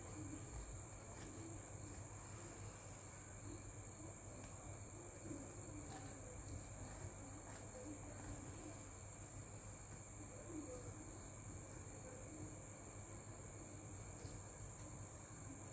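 A steady, high-pitched whine under quiet room tone, with faint, soft handling sounds from fabric being hand-tacked with needle and thread.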